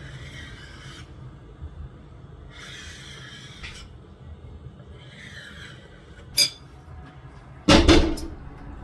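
Kitchen handling sounds: a few soft rubbing swishes, a sharp click about six seconds in, then a loud clatter of several quick knocks near the end, like a cupboard door or dishes being handled.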